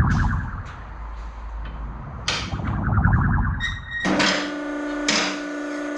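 Long ramp board being shifted against a metal car lift: two spells of scraping and rumbling, then from about four seconds in a loud, steady squeal in two stretches, like stick-slip between the board and the lift.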